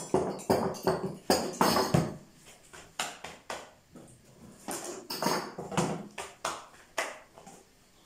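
Thin wooden rolling pin knocking and rolling against a wooden dough board, in quick repeated strokes of about three a second for the first two seconds, then fewer and quieter knocks.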